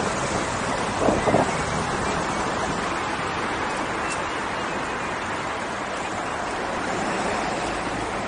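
Steady rushing wind noise on the microphone of a rider moving along on an electric unicycle.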